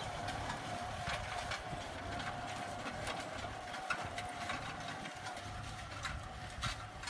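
Kubota M6040SU tractor's diesel engine running under load while pulling a disc plough through dry soil, with a steady whine over a low rumble. Irregular clicks and clanks come through it.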